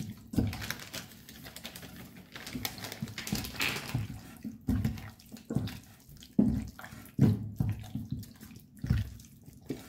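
Hands mixing raw chicken legs with egg and flour in a stainless steel pot: wet squelching and slapping in irregular strokes, with several louder dull thumps.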